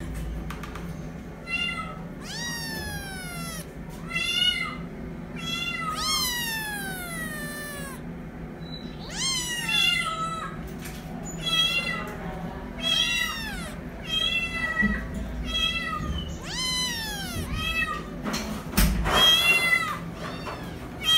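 Young cat meowing over and over, high calls that mostly fall in pitch, some short and some drawn out, loudest near the end.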